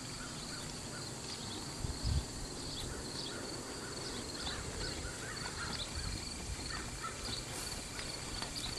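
Outdoor ambience of insects trilling steadily with scattered short bird chirps, over faint dull thuds of a walking horse's hooves on dirt, the loudest about two seconds in.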